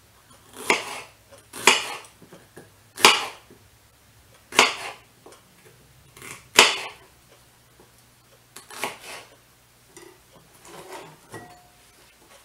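Kitchen clatter of dishes and utensils: about six sharp knocks and clinks, irregularly spaced a second or two apart, the loudest about three and six and a half seconds in.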